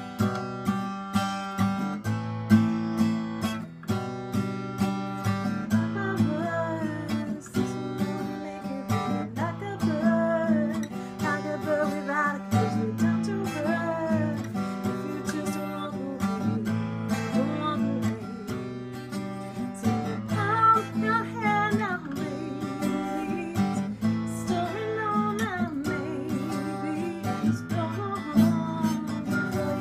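Acoustic guitar strummed in a steady rhythm. From about six seconds in, a woman sings over it.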